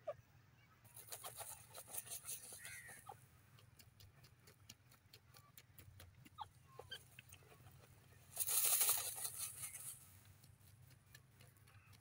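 Grey francolin dust-bathing in dry sandy soil: quick scratchy rustles of feathers and grit in the first few seconds, then a louder flurry of scattering sand lasting about a second and a half near the end, with a few faint short notes from the bird.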